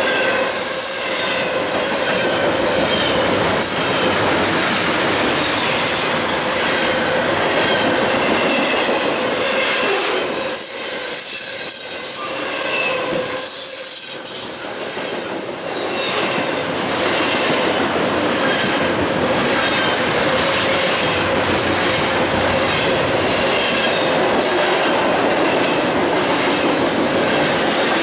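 Double-stack container cars of a BNSF freight train passing at speed, steel wheels rumbling and clattering over the rails, with a steady tone running through the noise. The sound eases briefly twice around the middle as the cars go by.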